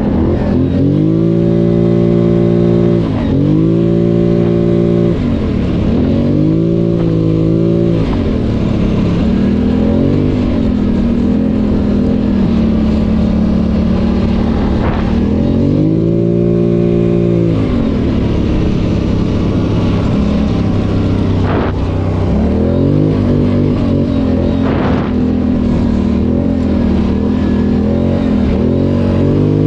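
ATV engine running under throttle, its pitch climbing and dropping back several times as it speeds up and eases off, with steadier running in between.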